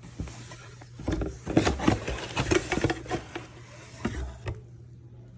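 Tea packets and tins being handled and moved about, giving a run of irregular knocks, taps and light clatter.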